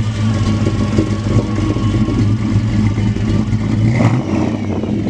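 1957 Chevrolet 210's 350 V8 with a mild cam, rumbling steadily as the car drives off. The engine note changes briefly about four seconds in.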